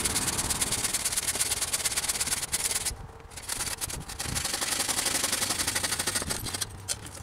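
Handsaw cutting through a wooden board with quick back-and-forth rasping strokes. There is a brief pause about three seconds in, then the strokes resume and stop near the end.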